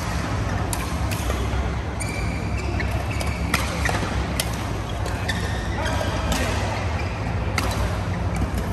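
Badminton racquets striking a shuttlecock in a doubles rally: sharp hits every second or so, with shoes squeaking on the court mat, over a steady low hum.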